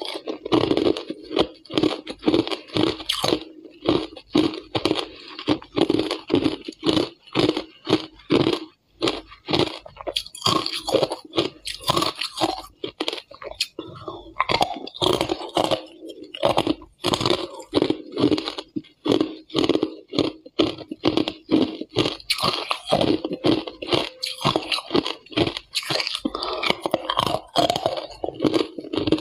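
Ice cubes being bitten and chewed close to the microphone: a long, fast run of hard, crackling crunches between the teeth.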